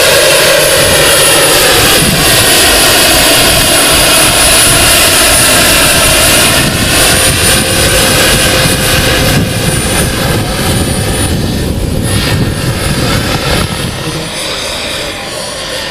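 Jakadofsky gas turbine of an oversize scale Lama SA 315B radio-controlled model helicopter running in flight, a steady high-pitched turbine whine over the rotor noise. Loud for the first half, then fading steadily as the helicopter climbs away.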